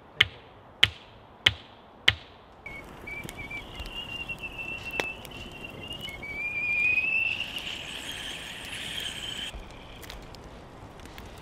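Four sharp knocks about two-thirds of a second apart, hammering on a wooden pole fence. Then a kettle on a campfire whistles, its pitch wavering and rising and its level swelling, until it cuts off suddenly near the end.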